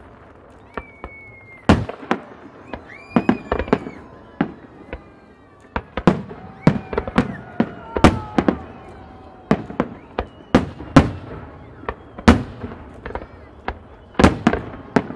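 Fireworks display: aerial shells bursting overhead, dozens of sharp bangs at irregular intervals, some coming in quick clusters.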